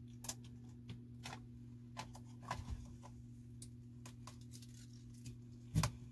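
Light clicks and taps as the plastic vacuum parts and the rubber power cord are handled, with a louder knock near the end, over a steady low hum.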